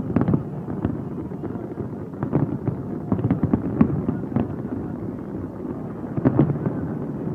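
Aerial fireworks shells bursting in quick, irregular succession, the bangs overlapping a continuous rumble.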